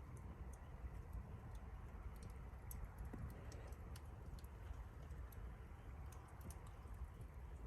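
Wood campfire crackling, with frequent small, sharp, irregular pops over a low steady rumble.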